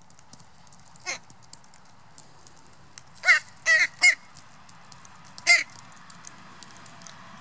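Northwestern crows calling: five short, harsh, nasal caws, a weaker one about a second in, then three quick loud ones close together and a last one about a second and a half later. Faint light ticking of beaks pecking sunflower seeds on the path runs underneath.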